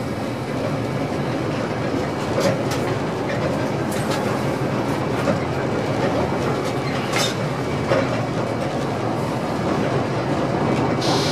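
Passenger train running along the track, heard from inside the driver's cab: a steady rumble of wheels on rail with a few sharp clicks as the wheels cross rail joints. Near the end a high hiss joins in.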